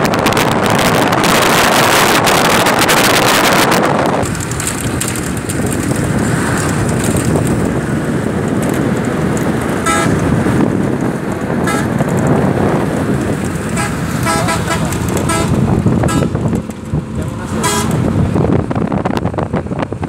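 Wind rushing over the microphone from a moving road vehicle, heaviest for the first four seconds, with the vehicle's running rumble underneath. Several short horn toots sound from about ten seconds in.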